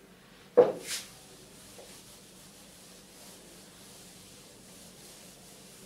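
A whiteboard being wiped clean with a duster: faint, steady rubbing. About half a second in there is a short, sharp thump, followed by a brief swish.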